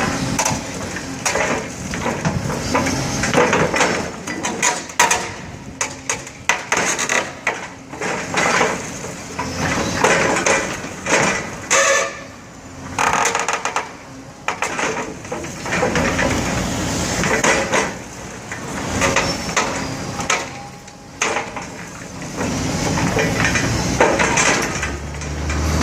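Building being demolished: irregular crunching, crashing and clatter of breaking concrete, rubble and metal, with a low machine running near the end.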